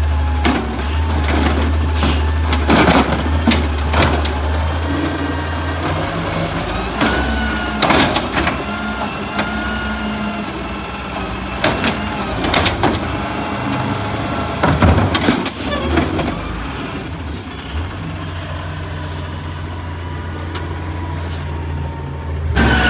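Automated side-loader garbage truck working a cart. The diesel engine runs up and down to drive the hydraulic arm, with a rising and falling hydraulic whine, and there are several loud bangs and clatters as the cart is lifted, shaken out into the hopper and set back down.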